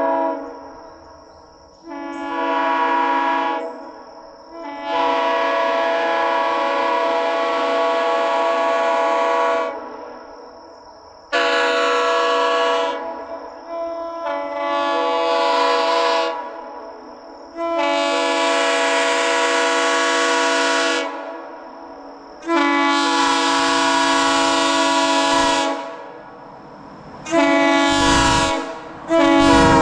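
Nathan Airchime K3LP three-chime air horn (bells 1L, 1 and 3B) sounding a steady chord in about eight blasts, a few short toots and several held for three to four seconds.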